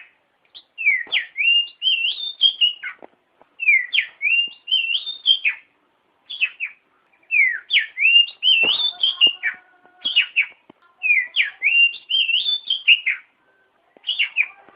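Oriental magpie-robin (kacer) singing: clear whistled phrases of rising and falling notes, repeated with short pauses between them.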